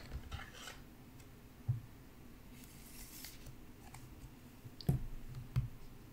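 Trading card and plastic card sleeve being handled on a table: soft clicks, a brief swish of plastic about three seconds in, and a few light taps on the tabletop.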